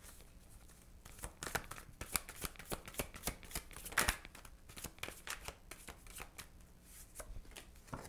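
A deck of tarot cards being shuffled by hand: a quick, uneven run of soft taps and flicks as the cards are slid and dropped onto each other, loudest about four seconds in.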